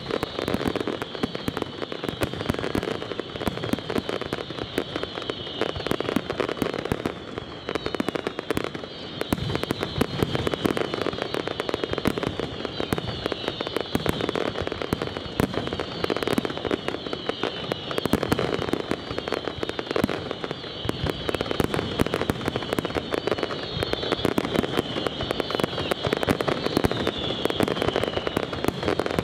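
Aerial fireworks display: a dense, unbroken barrage of shell bursts, bangs and crackling, many reports overlapping with no pause.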